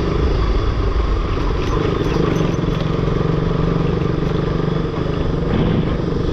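Motorcycle engine running at a steady speed while riding, with a constant road and wind rush.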